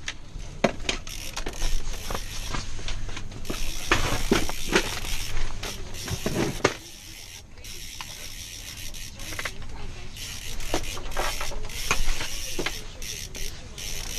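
Fishing reel ratcheting and clicking while a hooked fish is played through the ice, in many quick clicks. It eases off for a couple of seconds in the middle.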